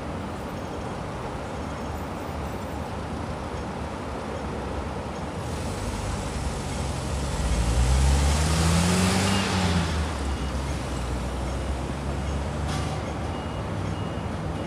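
Steady road traffic noise from a highway, with a heavy truck passing about halfway through: its engine note rises in pitch as it goes by, the loudest moment, then fades back into the traffic.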